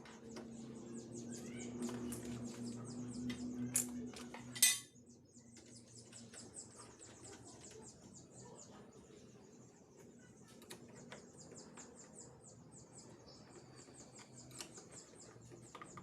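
Small birds chirping in rapid repeated high notes. For the first four and a half seconds a steady low hum sounds under them and ends with a sharp metallic click.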